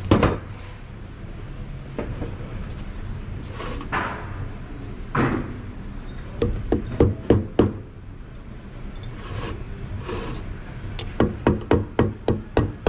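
Hammer tapping on the snap ring of a Ford 10R80 transmission's CDF clutch drum to seat it in its groove, in two runs of quick sharp taps: about six a little past halfway, and another nine or so, faster, near the end.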